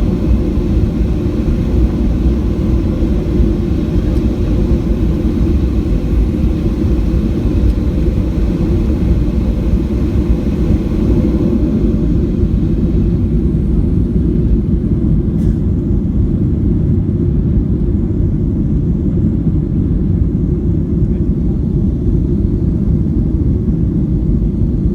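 Cabin noise of a Boeing 737-700 taxiing: a steady low rumble from the CFM56 engines at idle and the rolling gear, with no rise in pitch.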